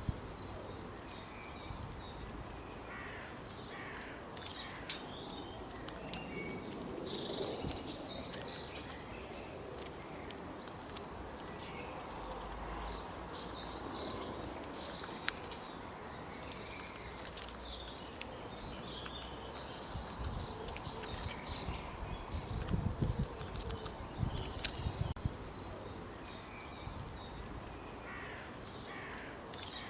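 Wild birds calling in a forest: bursts of short, high chirping notes come and go every few seconds, over a low background rumble.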